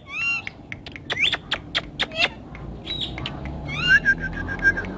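Indian ringneck parrot (rose-ringed parakeet) calling: a quick series of short, sharp, high chirps and screeches with rising and falling pitch, then a longer call held on one pitch near the end.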